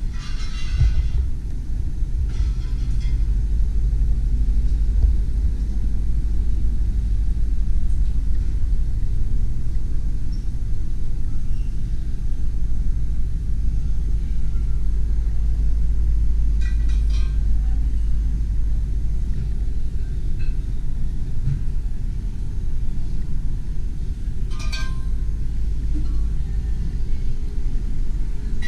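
Steady low rumble throughout, with a few brief faint sounds from further off about a second in, near three seconds, midway and near the end.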